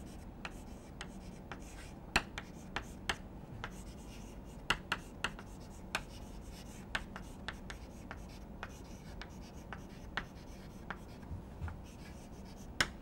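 Chalk writing on a chalkboard: a run of irregular sharp taps and short scratchy strokes as the chalk strikes and drags across the board, over a faint steady hum.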